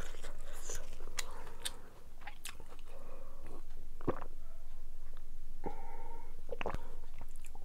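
Close-miked mouth sounds of eating: chewing with small wet clicks, then sips and swallows from a steel tumbler.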